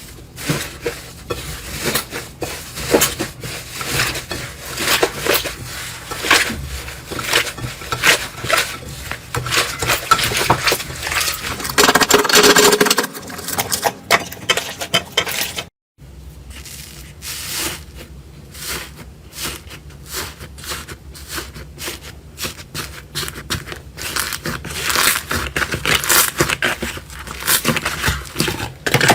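Slime being squeezed, pressed and stretched by hand, making dense crackling and popping. The sound cuts out briefly about halfway, then the crackling starts again.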